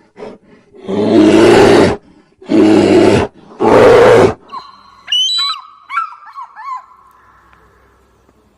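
A large wild animal roaring: three loud, rough roars in quick succession. They are followed by a run of short, high, gliding chirps that fade out.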